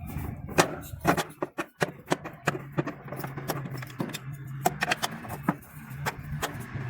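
Irregular light metallic clicks and taps of a tool loosening screws on the underside of a washing machine, with a low steady hum coming in about two and a half seconds in.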